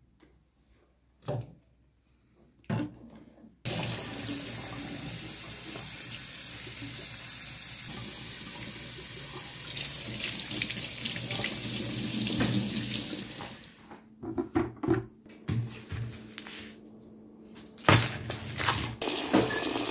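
Kitchen faucet running, water splashing over a potted succulent and into a stainless steel sink. It starts about four seconds in and stops about fourteen seconds in, with a few knocks before and after.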